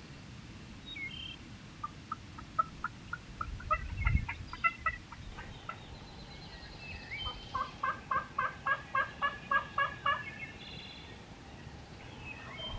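Two runs of turkey yelps, each of about eight to ten evenly spaced notes at roughly four a second, with faint songbird chirps above and a low thump about four seconds in.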